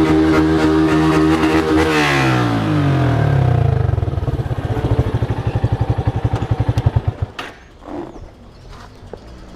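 A vehicle engine with a loud exhaust is held at high revs, then drops back to a slow, lumpy idle with distinct exhaust pulses. It shuts off about seven seconds in, followed by a few faint clicks.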